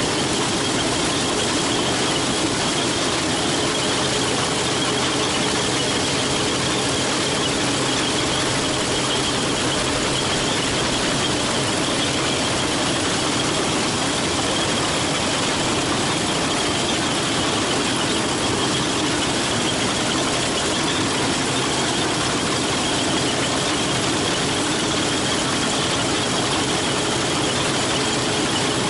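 Case 2166 combine running steadily while harvesting corn: an even, loud mechanical noise from the machine and its corn header, with a steady high whine over it.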